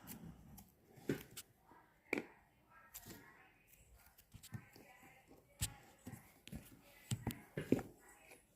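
Slime being squished and poked by hand, giving irregular sharp sticky clicks and soft pops, the loudest a little before the end.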